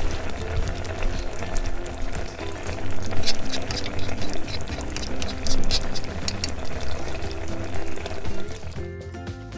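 Strawberry sauce bubbling and crackling as it simmers in a small metal pan, stirred with a tiny spoon, over background music. The bubbling stops near the end, leaving only the music.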